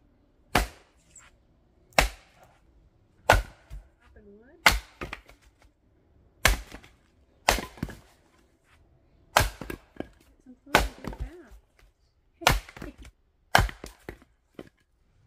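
Axe splitting firewood rounds on a chopping block: about ten sharp chops, one to two seconds apart, several followed by a short clatter of split pieces falling.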